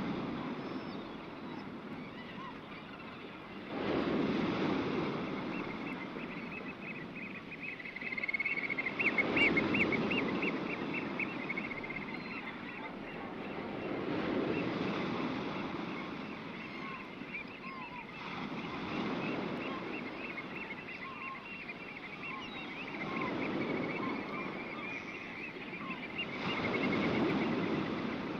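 Sea waves washing in, one swell about every four to five seconds, six in all. Over them a high, fast chattering call runs from about five seconds in until near the end.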